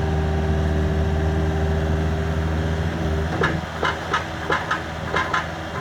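Engine idling steadily, its hum cutting off about three seconds in. After it comes a quick series of short, sharp clicks, about three a second.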